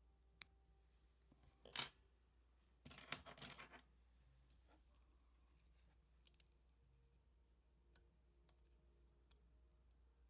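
Quiet handling of fly-tying tools and materials at the vise: a light tick, a short sharp snip-like sound near two seconds, then about a second of crackly snipping or rustling, followed by a few faint clicks.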